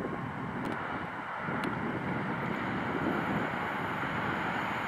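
An EN57ALc electric multiple unit approaching on the track, its running noise a steady rumble that grows slowly louder.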